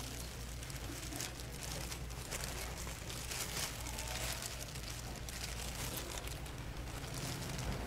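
Disposable plastic gloves crinkling and rustling as hands press and spread cooked rice over a sheet of dried seaweed and lay fillings on it, with many small crackly ticks. A steady low hum runs underneath.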